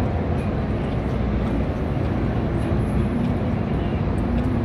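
Two low-flying helicopters heard at a distance: a steady low rotor rumble mixed with city background noise.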